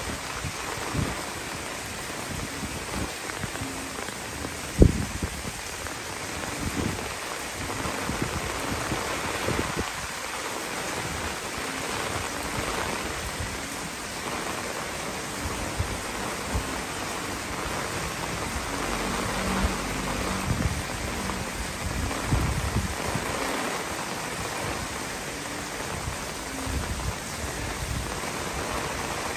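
Heavy typhoon rain falling steadily on garden foliage, with occasional low buffeting on the microphone and one sharp thump about five seconds in.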